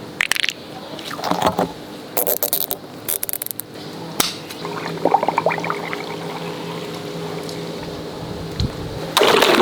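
Water running into a stretchy rubber toy, with squishing and handling noises. Near the end comes a sudden loud burst of water splashing out.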